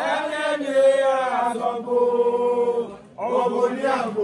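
A woman chanting loudly in long held notes, one phrase that breaks off about three seconds in and a second that follows at once.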